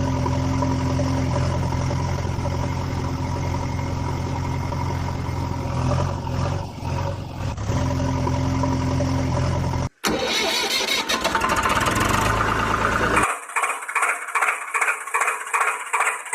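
Vehicle engine sound running steadily for about ten seconds, cut off abruptly. A different engine sound follows, turning into a choppy, pulsing run of about three beats a second near the end.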